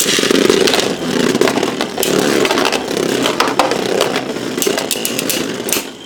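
Two Beyblade Burst tops, one of them Revive Phoenix, spinning and clashing in a plastic stadium: a continuous rasping whir of tips grinding on the floor, with many sharp clicks as the tops collide. It eases off near the end.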